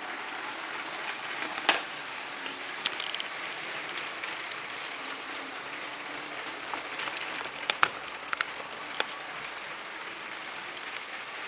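Lego trains running on plastic track: a steady rolling hiss with a handful of sharp clicks, the loudest about two seconds and eight seconds in.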